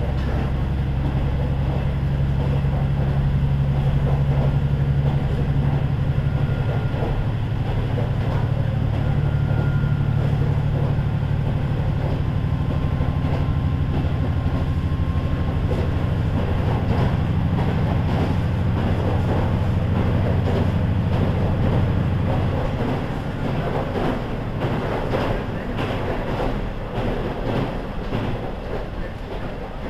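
KiHa 40 diesel railcar running, its engine droning steadily under power with a low, even note. About 22 seconds in the engine note drops away, leaving the wheels' rail-joint clatter and running noise more to the fore.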